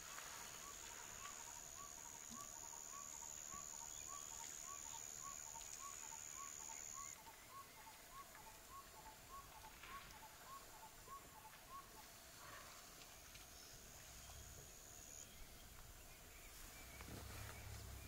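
Faint natural bush ambience: a steady high-pitched insect whine, loudest in the first few seconds, and a bird's short call repeated about three times a second until about two-thirds through. A few faint clicks, and a low hum comes in near the end.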